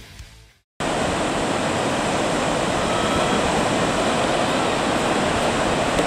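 A rock music track fades out, and about a second in a steady rush of surf from waves breaking on a sandy beach takes over.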